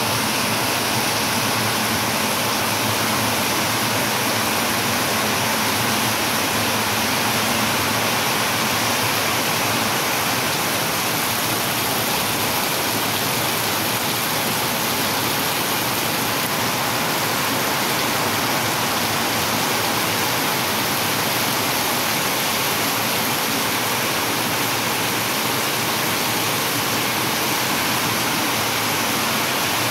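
Heavy rain pouring steadily onto wet brick paving and flooded ground, an even, unbroken hiss.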